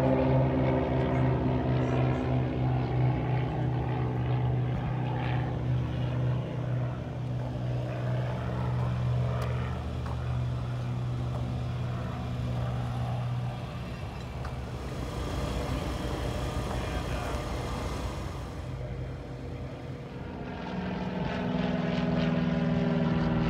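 Piston engine and propeller of a light airplane running with a steady drone that fades away about 14 seconds in; a second airplane's engine drone grows louder from about 20 seconds in.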